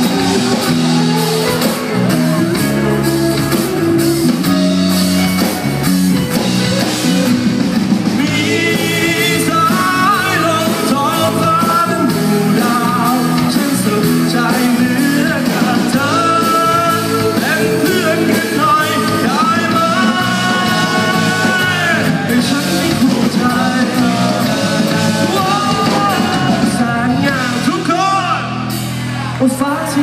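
Live band playing a rock-pop song on acoustic and electric guitars, with a singer's voice coming in about eight seconds in.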